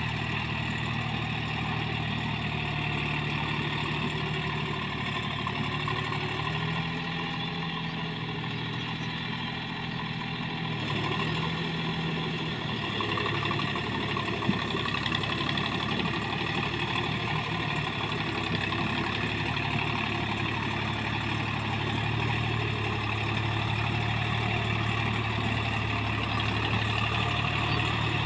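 Deutz-Fahr Agrolux 50 4WD tractor's diesel engine running steadily as it drives a rotary tiller through paddy mud. The engine note shifts and dips for a few seconds about a quarter of the way in, then steadies again.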